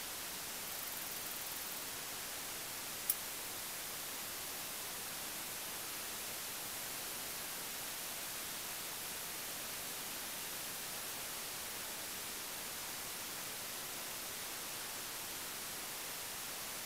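Steady hiss of shallow river water running over stones and a low weir, with one sharp click about three seconds in.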